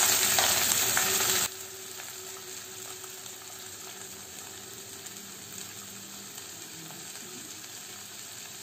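Drained, soaked basmati rice sizzling as it hits hot ghee and fried onions in a frying pan. About a second and a half in, the sizzle drops abruptly to a much quieter, steady frying hiss while the rice is stirred with a wooden spatula.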